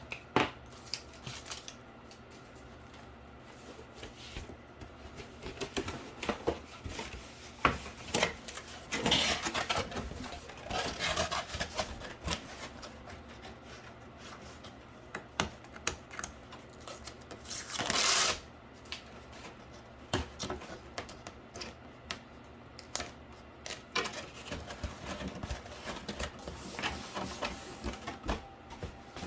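Cardboard pieces being handled, pressed and glued together by hand: irregular taps, clicks and rubbing, with one louder, longer rustle a little past the middle.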